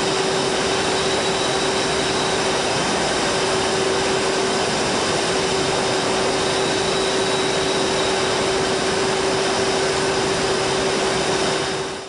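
Steady industrial noise on a glass-works floor beside the furnace: a constant rushing machinery din with a steady mid-pitched hum through it.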